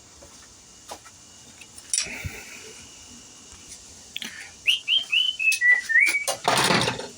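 A short run of high whistled notes, four quick falling chirps followed by a few lower, steadier notes, then a brief loud rush of noise.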